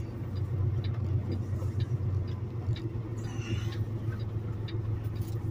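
Semi truck's diesel engine running low and steady at slow speed, heard from inside the cab, with faint clicks now and then and a brief hiss about three seconds in.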